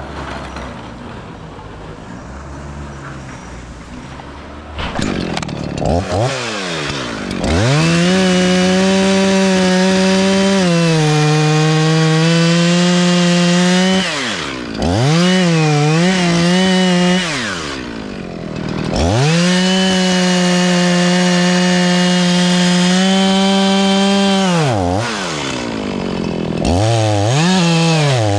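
Chainsaw revving up about five seconds in, then running at high, steady speed through two long stretches, dropping off briefly between them and revving again near the end.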